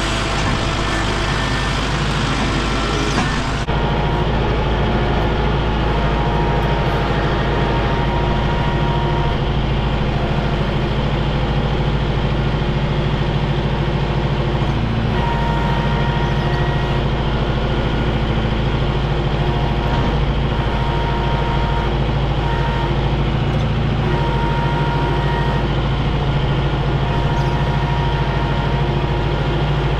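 Engine of a heavy work vehicle running steadily, with a faint whine that comes and goes.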